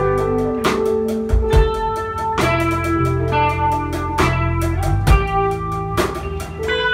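Band playing live: electric bass and drum kit with held chords over them, the drum hits falling at regular intervals.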